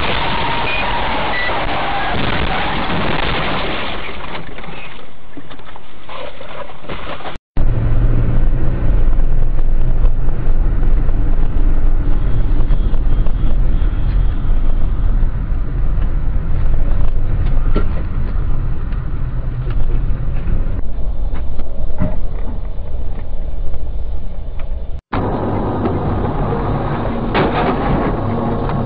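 Road and engine noise inside moving cars, picked up by dashboard cameras. The sound drops out for an instant and changes character about a quarter of the way in and again near the end, and it is louder and deeper in the middle stretch.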